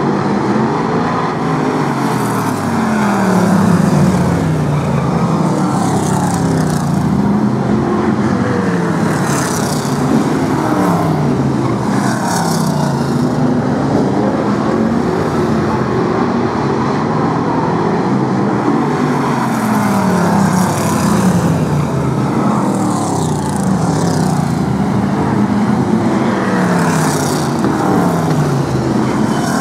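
Several BriSCA F1 stock cars' V8 engines racing at full throttle around a short oval. The engine pitch rises and falls over and over as the cars accelerate down the straights and lift for the bends, over a steady din of engines.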